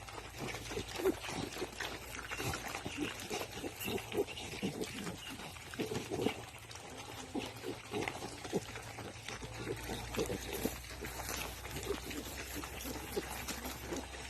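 Pigs grunting: many short, irregular grunts one after another.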